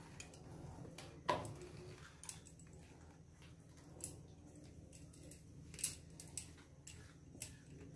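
Fingers scraping wet coconut paste out of a stainless-steel mixer-grinder jar, with a few light knocks and clicks as the metal jar is handled; the sharpest knock comes about a second in and another near six seconds.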